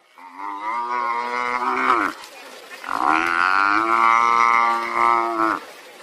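African buffalo bellowing in distress under attack by lions: two long, drawn-out bellows, the second longer, each dropping in pitch as it ends.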